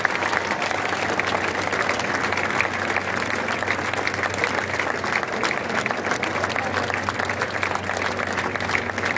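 A large crowd applauding, many hands clapping at once at a steady level throughout.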